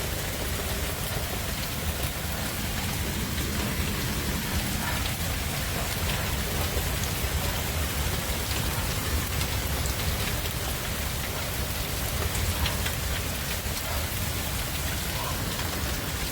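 Hailstorm: hail and heavy rain pelting hard surfaces, a steady dense hiss speckled with many small sharp impacts.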